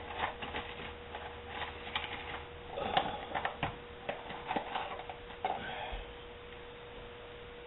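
Scattered small clicks and light knocks of objects being picked up and handled, thickest in the middle few seconds, over a faint steady hum.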